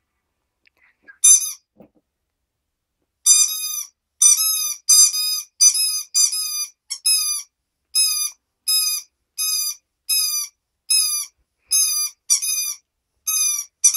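Squeaker in a rubber bone toy squeaking again and again as a corgi puppy chews on it. One squeak comes about a second in, then from about three seconds a steady run of roughly two high squeaks a second, each dipping in pitch at its end.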